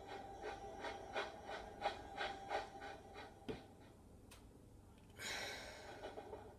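Toy steam train chuffing: a regular run of short puffs, about three a second, that fades out halfway through. A single hiss follows about five seconds in.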